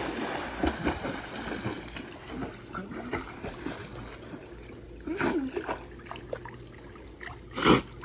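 Pool water splashing and sloshing as a dog that has just jumped in paddles across a swimming pool, with brief louder bursts about five seconds in and just before the end.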